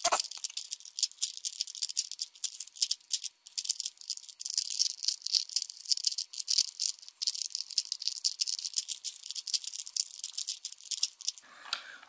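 A 3x3x3 Rubik's Cube being scrambled by hand: fast, continuous light clicking and rattling of the plastic as its layers are turned over and over.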